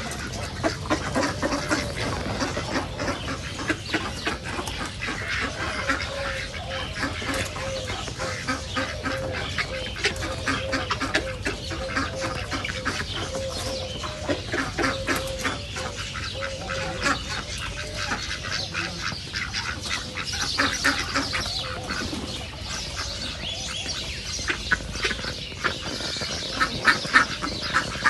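A flock of ducks calling continuously, with many overlapping quacks. Through the middle runs a series of short, evenly repeated calls.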